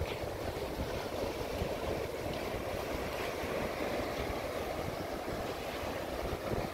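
Surf breaking and washing up on a sandy beach: a steady rush of waves, with wind rumbling on the microphone.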